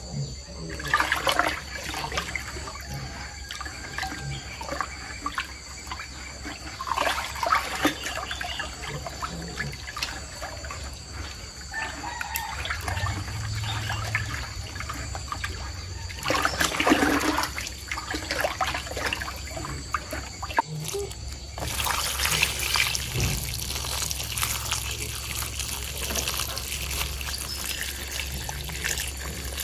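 Water poured in a steady stream into a plastic bucket of sliced green bananas, adding the water for fermenting them as animal feed. It begins about two-thirds of the way in. Before that there are scattered rustles and knocks of handling, with a steady high-pitched whine in the background.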